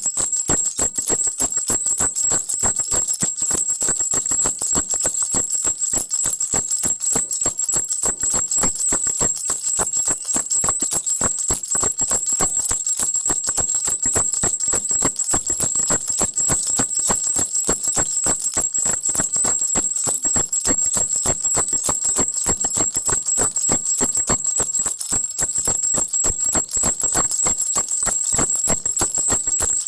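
Crocodile baby rattle shaken without a break: a fast, dense jingling with a steady high ring.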